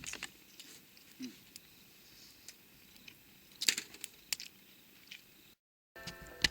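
Campfire crackling: scattered sharp pops and snaps of burning wood over a quiet background, with a louder cluster of snaps about three and a half seconds in. The sound drops out briefly near the end.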